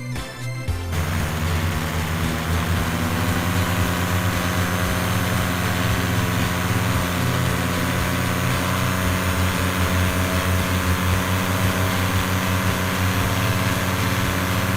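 Paramotor engine and propeller running steadily at an even pitch, with a dense rushing hiss over a low engine drone. It starts about a second in.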